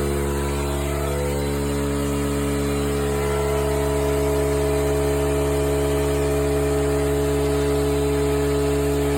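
A small motor running with a steady hum that does not change in pitch or level.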